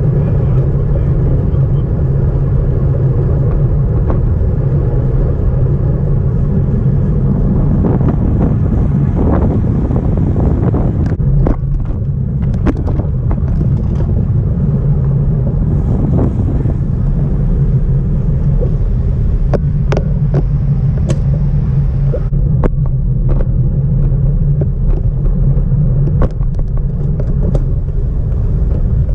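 Wind buffeting the microphone of a body-strapped GoPro on a moving road bicycle: a loud, steady low rumble, with scattered clicks and knocks.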